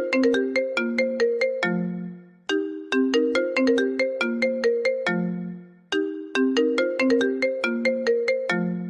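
iPhone ringtone: a short melody of quick, bright struck notes, looping about every three and a half seconds. Each pass ends on a longer low note that dies away before the phrase starts again.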